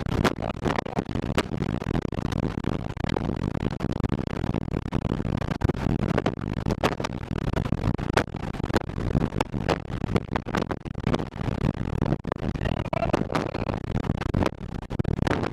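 Heavy storm wind rushing, with many sharp knocks of things striking throughout.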